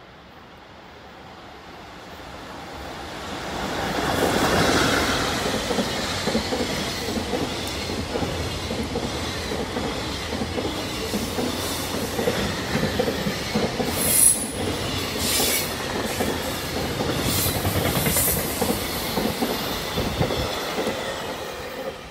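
A JR Freight EF65 electric locomotive and a long train of container flat wagons passing. The sound builds as the locomotive approaches and goes by a few seconds in. The wagons' wheels then rumble steadily along the rails, with a few brief high squeals in the second half, and the sound drops away as the last wagon clears near the end.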